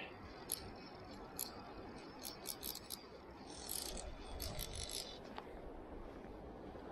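Fly reel's click-and-pawl drag ticking in short, scattered runs of high clicks as line comes off the spool.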